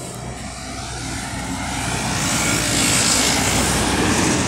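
Road traffic passing close on a wide city avenue: engine rumble and tyre noise swell to their loudest about three seconds in, then ease off.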